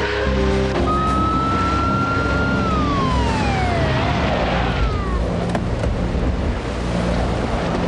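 A rescue truck's siren holds a tone, then winds down about three seconds in. Under it is the steady wash of storm wind and rain, with the tail of background music at the very start.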